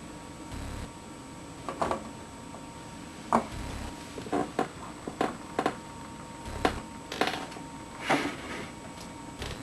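Handling noise of a boxed action figure: about a dozen short, scattered taps and clicks, with three brief dull low thumps.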